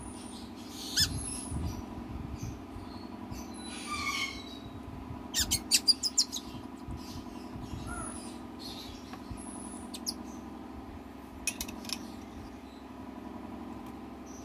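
Two-day-old cockatoo chick giving faint, short high-pitched peeps while being hand-fed formula from a spoon. A quick run of sharp clicks comes about five and a half seconds in, with a steady low hum underneath.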